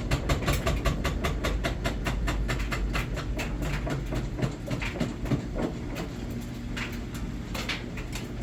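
Samsung VRT front-load washing machine on its spin cycle, its drum knocking and banging in a fast, even rhythm over a steady low hum, the knocks growing sparser in the second half. The knocking is the sign of a deteriorated, broken drum spider arm.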